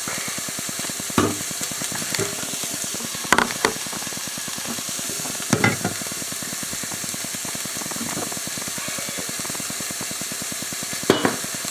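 Food frying in hot oil in a pan, sizzling steadily, with a few short knocks and scrapes of stirring against the pan at irregular moments.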